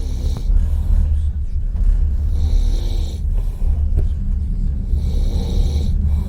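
A sleeping passenger snoring loudly, three rasping snores about two and a half seconds apart, over the steady low rumble of a passenger train carriage.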